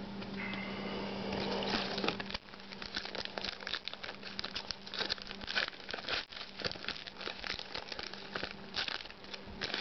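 Trading-card pack wrapper crinkling and tearing, with the cards inside handled and flipped through in quick, irregular rustles and clicks.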